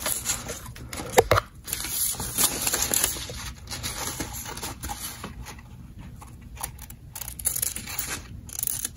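Scissors cutting through printer paper in a run of short snips, with the paper rustling as the sheet is turned. A sharp click about a second in is the loudest sound.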